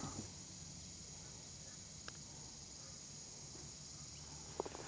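Faint, steady chirring of insects, high-pitched with a slight pulsing. There is a soft click about two seconds in and a quick run of ticks near the end.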